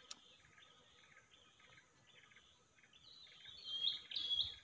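Birds calling, short high chirps repeating over and over, with a louder run of high calls in the last second and a half. A single sharp click comes just after the start.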